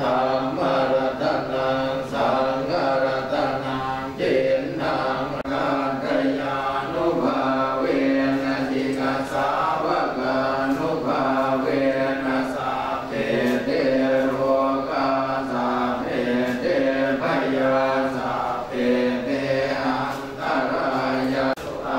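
Group of Thai Buddhist monks chanting Pali verses in unison, a continuous blessing chant held on a few steady pitches.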